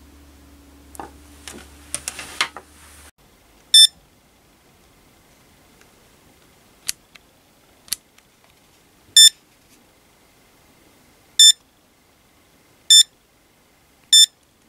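Mustool MT92 digital multimeter beeping as its buttons and thumb wheel are worked: five short identical high beeps a second or more apart, the loudest sounds here, with two sharp clicks between the first two. Handling rustle and knocks come first, for about three seconds.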